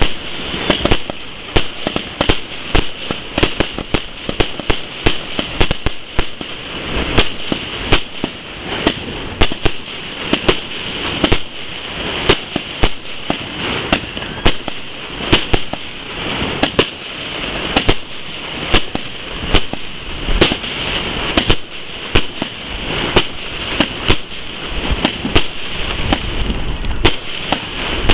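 Aerial fireworks display: a rapid, irregular run of bangs from shells bursting overhead, several a second, over a steady hiss.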